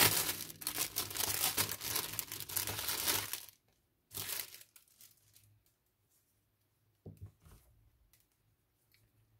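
Clear plastic bag crinkling and rustling as a small cloth mask is pulled out of it, stopping about three and a half seconds in. A brief rustle follows just after, then a few faint handling clicks.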